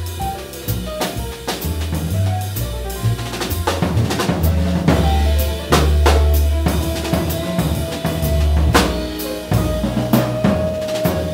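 Live jazz combo playing: a drum kit with snare, bass drum and cymbals busy throughout, over low double bass notes and piano. The band grows louder about four seconds in.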